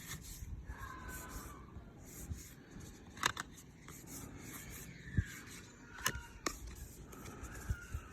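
Cardboard trading cards being handled and slid against one another, a soft rubbing and scraping with a few sharp clicks.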